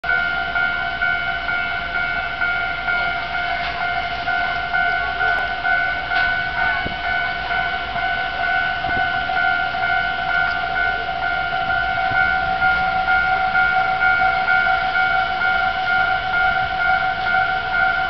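Railway level crossing warning alarm ringing steadily as the crossing is active for an approaching train.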